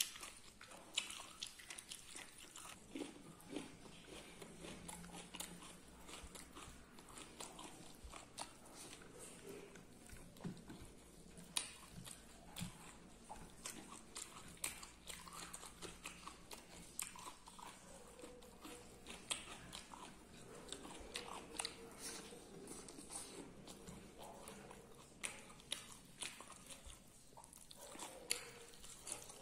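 A person eating beef close to the microphone, chewing and biting with many small, irregular clicks and smacks. Faint throughout.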